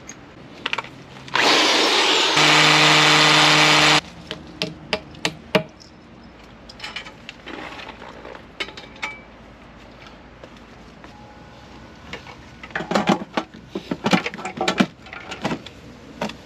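Power drill running in two stretches over about two and a half seconds, driving screws for the wall bracket of an EV charger. It is followed by scattered clicks and knocks of hardware being handled, and a quick cluster of clicks and rattles near the end.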